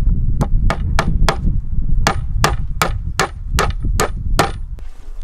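A series of about eleven sharp knocks, each with a short, high metallic ring, roughly three a second with a brief pause after the first four. A steady low rumble of wind on the microphone runs underneath.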